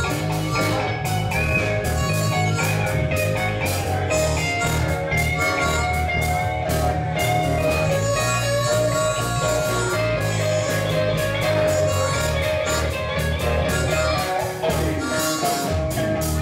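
Live blues-rock band playing: electric guitars and bass over a drum kit with a steady beat, with sustained bending lead notes from a harmonica played into the vocal mic.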